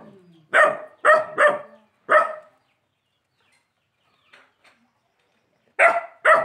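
A dog barking in short runs: four barks in the first two seconds, then a pause of about three seconds, then two more barks near the end.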